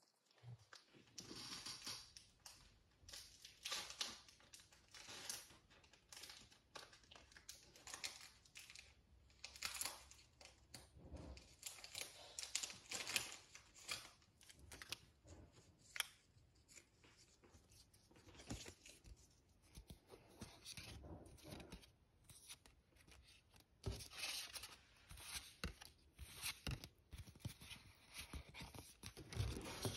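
Pokémon card battle box packaging being torn open and crinkled: a long, irregular run of faint rustling and ripping, with sharper tears scattered through.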